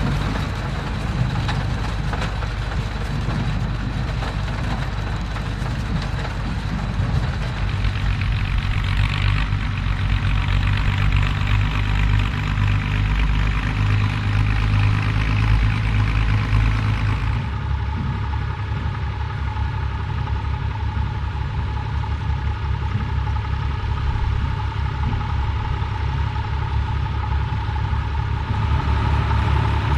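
Vintage farm tractor engines running steadily. About two-thirds of the way through, the sound changes abruptly to a different engine note.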